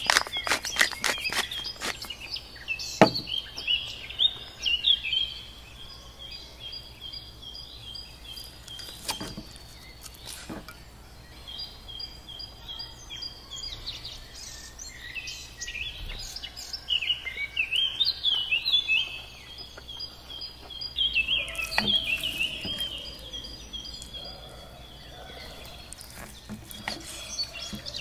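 Small birds chirping and singing: many short, quick calls, some rising and some falling, with busier spells in the middle and near the end. A quick run of clicks in the first second and a few separate knocks stand out above them.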